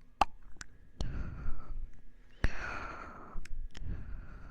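Close-miked mouth sounds: a few sharp wet mouth clicks and two long breathy exhales, the second starting with a click about two and a half seconds in.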